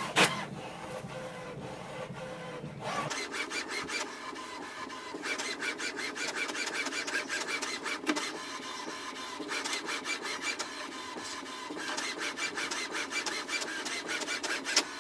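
HP OfficeJet Pro 9019 inkjet printer printing its print-head alignment page: a steady low hum for about the first three seconds, then the print carriage running back and forth in passes of rapid clicking as the page feeds out.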